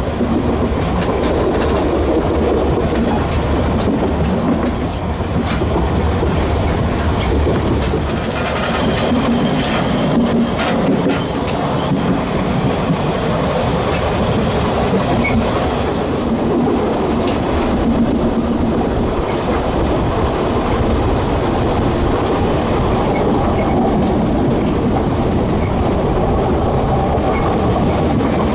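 Narrow-gauge railway carriage running along the track: a steady rumble of wheels on rails, with occasional clicks from the rail joints.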